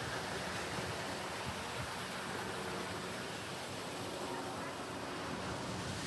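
Steady rush of falling water from a garden waterfall, an even hiss with no breaks.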